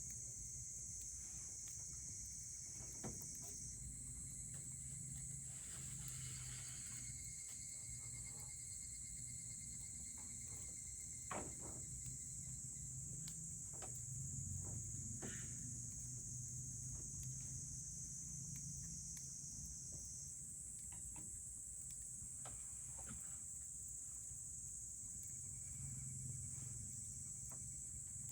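A steady, high chorus of crickets or other insects, with a wood campfire crackling beneath it in scattered sharp pops and a low rumble.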